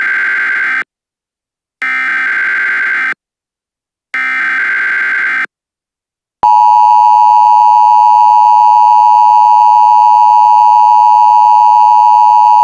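Emergency Alert System SAME header: three bursts of buzzy digital data tones, each a little over a second long. Then, about six and a half seconds in, the loud, steady two-tone EAS attention signal begins and holds.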